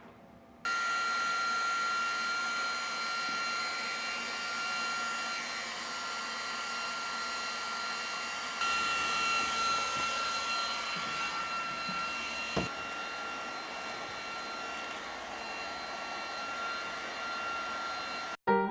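Leister TRIAC ST hand-held hot-air plastic welder running: a steady blower rush with a high, even motor whine. It starts abruptly about half a second in and cuts off just before the end.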